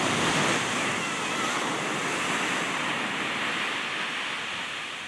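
Ocean surf: a wave breaking and washing up the beach, a steady rush of water that is loudest in the first second and slowly eases off.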